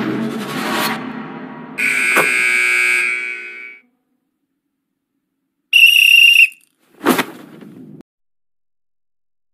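A basketball referee's whistle gives one short, shrill blast about six seconds in. Before it, a high, steady tone holds for about two seconds. About a second after the whistle comes a single sharp hit with a short ring.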